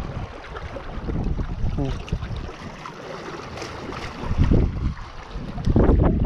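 Wind buffeting the microphone in uneven gusts, strongest about four and a half seconds in and again near the end, over lake waves washing against shoreline rocks.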